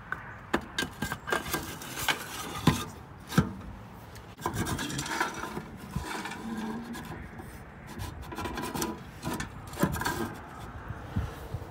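Wood chips rattling and a wood-chip loader tray scraping as it is slid into the side slot of an electric smoker and its handle is worked, with several sharp knocks and clicks among the scraping.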